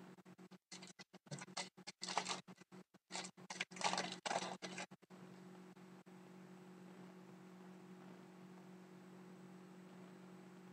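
A foil trading-card pack being torn open, its wrapper crinkling and rustling in quick bursts for about five seconds. After that only a steady low hum is left.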